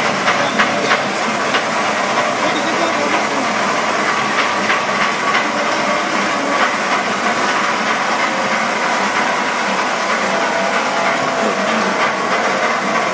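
Large circular metal saw cutting through a thick round steel billet: a steady, loud hissing cutting noise with scattered sharp clicks.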